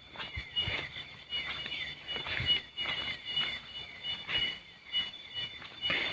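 Forest animal chorus: a high, short note repeated steadily a few times a second over other falling chirps, with scattered short rustles and knocks.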